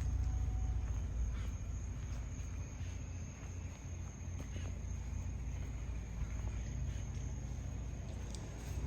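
Crickets trilling in a steady, thin, high tone over a low, steady rumble, with a few faint clicks.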